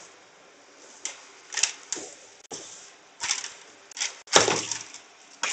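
A series of about eight irregular, sharp clicks and light knocks with quiet in between. The loudest, a little over four seconds in, has a dull thud under it.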